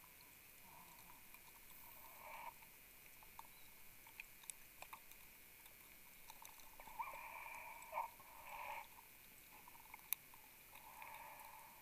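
Near-silent underwater sound from a diver on a closed-circuit rebreather: faint soft hisses every few seconds as the diver breathes through the loop, and a few small sharp clicks.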